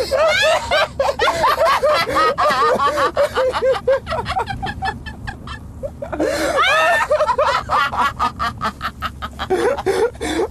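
A man and a woman laughing together in quick repeated bursts of ha-ha laughter, with a quieter, breathier stretch about halfway through.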